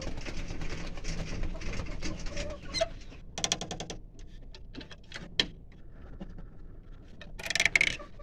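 Broody hen sitting on her eggs, with low sounds from the nest, a short rapid rattling call a little past three seconds in and a louder harsh call near the end.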